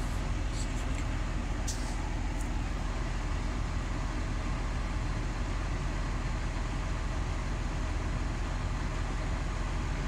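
John Deere tractor engine running steadily, heard from inside the cab, with a few light clicks in the first couple of seconds.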